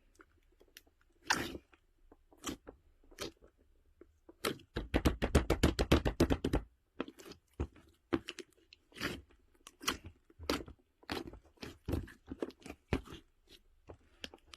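Crisp crunching, like something brittle being bitten and chewed: scattered single crunches, with a fast run of about ten crunches a second from about five to seven seconds in.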